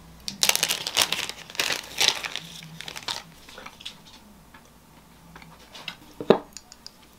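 Plastic packaging crinkling as it is handled for about three seconds, followed by scattered small clicks and one sharp crunch about six seconds in.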